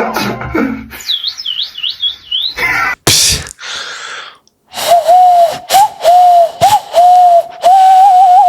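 Beatboxer's mouth sound effects: a high, warbling bird-like whistle that swoops up and down several times, a short hiss, then a steady whistled tone broken into a run of pulses with quick upward flicks between them.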